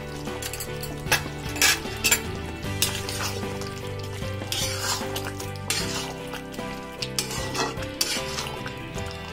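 Metal spoon stirring chicken gravy in a kadai, scraping and clinking against the pan about ten times, with the gravy sizzling; it is mixing in freshly added ground black pepper.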